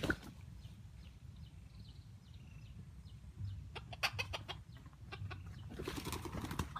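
A chicken clucking, with short bursts of rustling and knocking about four seconds in and again near the end.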